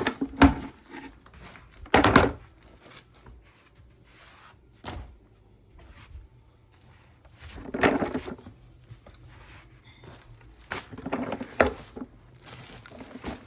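Handling noises as a cloth dust bag is fitted back into a Henry vacuum cleaner: a few dull thunks and knocks with rustling. They come in louder clusters about 2 seconds in, around 8 seconds in, and again around 11 to 12 seconds in.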